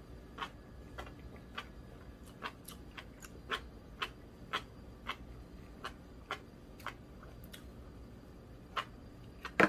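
Eating utensils clicking and tapping against bowls during a meal: light, irregularly spaced taps, about two a second, with a louder pair near the end.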